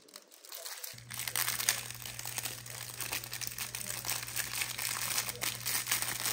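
Thin clear plastic bag crinkling and crackling as fingers handle it, with a low steady hum that starts about a second in.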